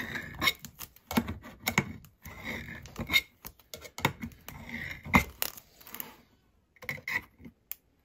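Lever-type can opener on a Ratnik 6E6 multitool being worked around a steel can's lid: a run of irregular metallic clicks and short scrapes as the blade punches and pries through the tin, pausing about six seconds in, with a few more clicks near the end.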